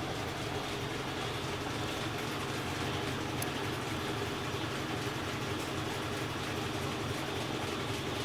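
GE EcoPerformance 15 kg top-loading washing machine in its spin cycle: the motor and spinning drum give a steady, even hum.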